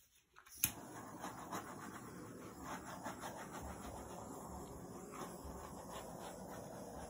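Handheld torch lit with a sharp click a little over half a second in, then its flame hissing steadily.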